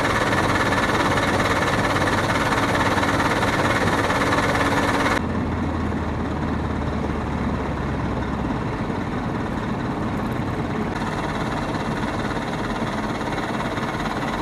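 A vehicle engine idling steadily with a low hum. About five seconds in the sound changes abruptly, becoming quieter and lower.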